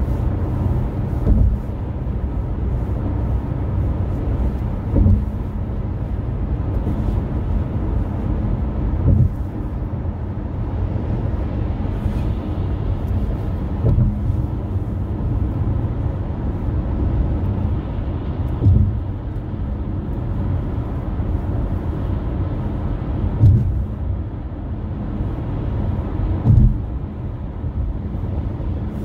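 Car road noise heard from inside the cabin at highway speed: a steady low rumble of tyres and engine. About every four seconds there is a short low thump as the wheels cross joints in the elevated roadway.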